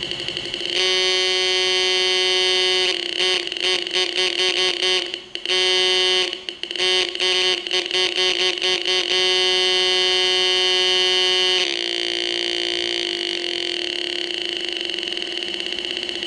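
Small loudspeaker driven by a two-transistor oscillator circuit, giving a harsh electronic buzz that changes as a potentiometer is turned. A faint buzz jumps to a loud steady tone, breaks twice into rapid pulses of about five a second, runs steady again, then drops to a quieter, slightly lower buzz near the end.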